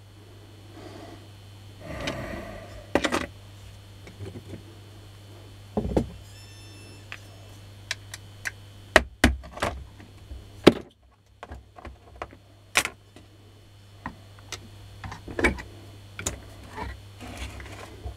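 Scattered clicks and knocks of metal and plastic parts and tools being handled while a Makita 9237CB polisher is taken apart, with a few sharper knocks among them.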